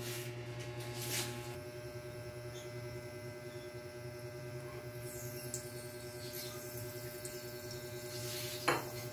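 Steady low electrical hum, with a few faint knocks about a second in and again near the end.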